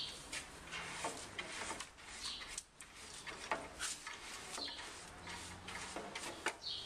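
A short high chirp repeating about every two seconds, over scattered clicks and rustling.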